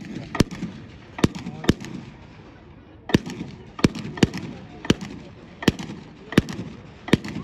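A series of sharp bangs, about a dozen in seven seconds, irregularly spaced, each with a short echo, over a murmur of voices.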